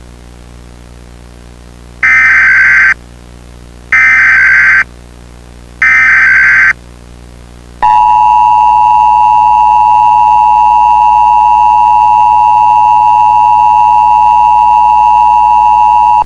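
Emergency Alert System tones: three short bursts of SAME digital header data, each about a second long with about a second between them, then about eight seconds in the steady two-tone EAS attention signal, which runs on. Together they mark the start of an emergency alert broadcast.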